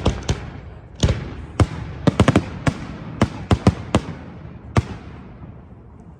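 Fireworks bursting in a run of sharp, irregular bangs, with a quick cluster of cracks about two seconds in. The bangs thin out and stop about five seconds in, leaving a fading crackle.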